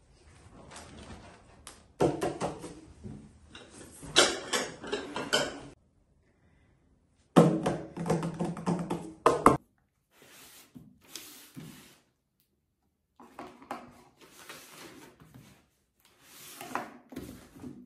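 A white IKEA flat-pack coffee table being handled and set in place: knocks and scraping of its boards, loudest in two bursts in the first half. Then quieter rustling of paper and cardboard as a parcel is handled.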